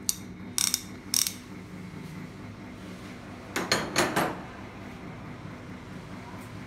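Metal hand tools (spanners) clinking and clicking against each other as they are handled: a few sharp clicks in the first second and a half, then a louder cluster of clinks about four seconds in.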